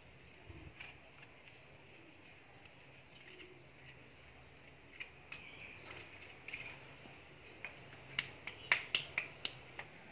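Faint scraping and clicking of a small metal hand hoe digging into garden soil, with a quick run of sharper clicks near the end.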